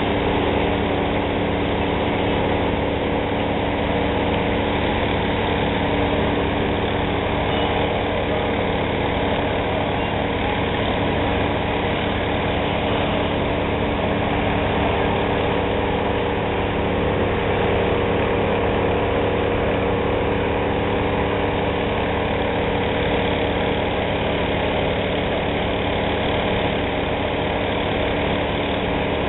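Engine running steadily at a constant speed: an unbroken hum with several steady tones that does not rise or fall.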